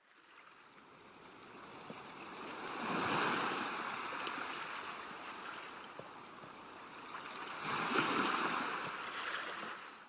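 Ocean surf: waves breaking and washing in, swelling to a peak about three seconds in and again near eight seconds, with softer wash between.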